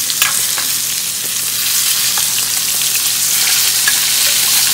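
Steaks and melted butter sizzling loudly and steadily in a very hot cast iron skillet as the steaks are basted to finish the sear. Now and then a metal spoon clicks lightly against the pan.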